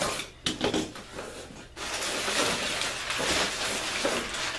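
Cardboard box and its packing being handled: a few knocks and scrapes, then about three seconds of continuous rustling of packing material.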